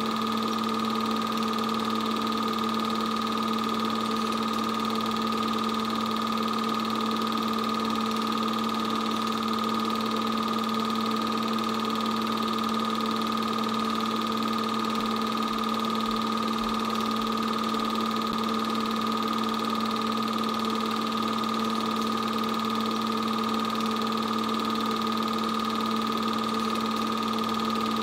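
8mm film projector running: a steady, unchanging motor hum with a high whine over it.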